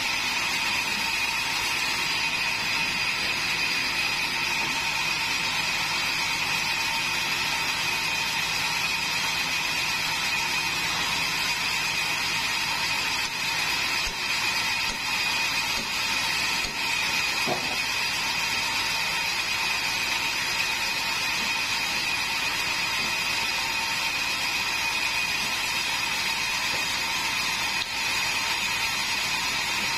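Large sawmill bandsaw running idle with its blade spinning but not cutting, a steady mechanical whine with a few held tones.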